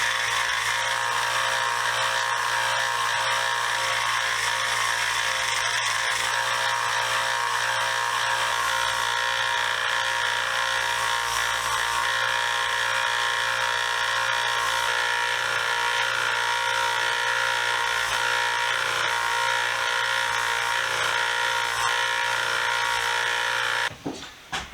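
Belt sander with a conditioning belt running steadily while steel screwdriver shafts are cleaned up on it, stopping abruptly near the end.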